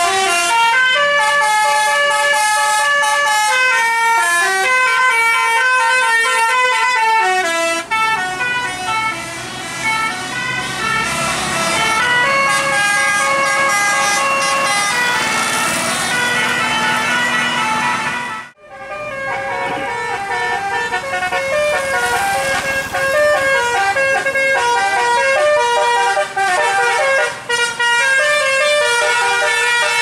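Tour bus telolet horns, multi-tone horns playing a continuous tune of stepped, held notes. The sound drops out briefly about 18 seconds in, then the tune picks up again.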